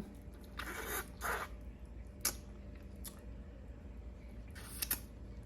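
Close-miked wet eating sounds as oxtail meat is sucked and chewed off the bone: a few short smacking and slurping noises, with a sharp click about two seconds in.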